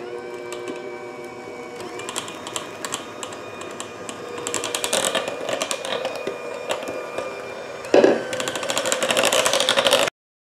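Electric hand mixer running with a steady motor whine, its beaters clattering in the bowl as flour is beaten into thick pumpkin batter. The clatter grows busier partway through, a bump comes about eight seconds in, and the sound cuts off suddenly near the end.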